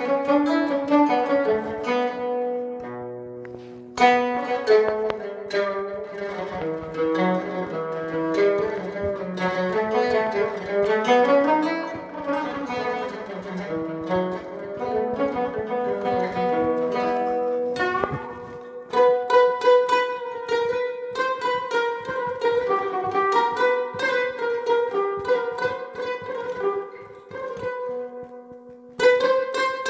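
Electric oud played through an amplifier, plucked with a plectrum (risha) in quick solo melodic runs and rapid repeated-note picking. There are short breaks about 4 s in, about 18 s in and near the end.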